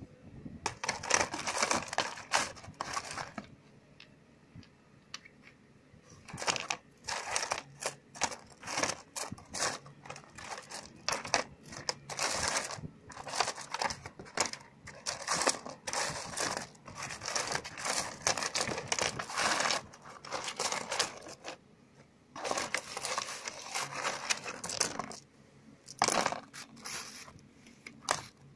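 Hard white stones clicking and clattering against one another as a hand stirs and lifts them in a cardboard box. The clacks come in busy bursts, with a pause of about three seconds after the first burst and a shorter pause later.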